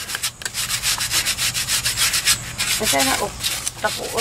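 Fast, even scraping strokes, several a second, of a coconut husk scrubbed across a hard cake of tibuok salt to clean off the clay and ash left from its pot.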